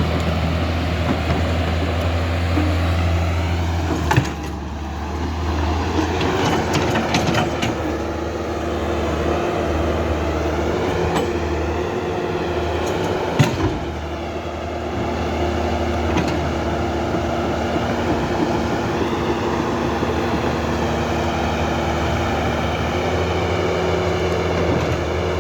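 Huina RC excavator running: a steady machine drone with a low hum and a higher whine that rises and falls. Two sharp clicks come about 4 and 13 seconds in.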